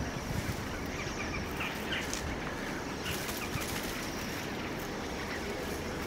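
Fieldfare giving short, scattered harsh calls over a steady background hiss and low hum.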